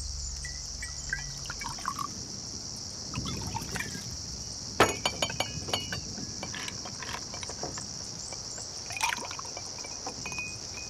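Red wine being poured into glasses and glasses knocking and clinking against each other, the sharpest clink about five seconds in followed by a few lighter ones, and another knock near nine seconds. A steady high insect drone runs behind.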